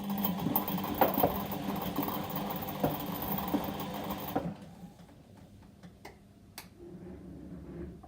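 Whirlpool washing machine on a delicate wash, its motor turning the drum with a steady hum and some clicks and knocks. The drum stops abruptly about four and a half seconds in, leaving only faint clicks and a low hum.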